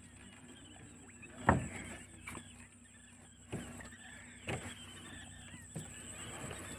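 Knocks and bumps on a small wooden boat as a fisherman works a pole and net rope against the side. The loudest knock comes about a second and a half in, with quieter ones roughly every second after it.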